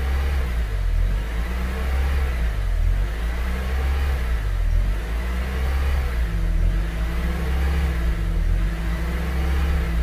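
Second-generation Honda CR-V's engine idling, heard from inside the cabin, with its speed drifting gently up and down: idle hunting.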